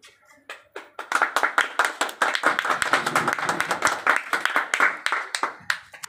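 A small group of people clapping their hands, a few scattered claps breaking into steady applause about a second in and dying away near the end.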